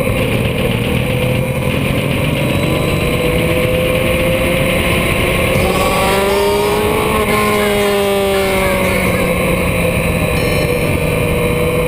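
Motorcycle engine running at cruising speed, heard from the moving bike with heavy wind rush over the microphone. About halfway through, a second engine note swells and falls away.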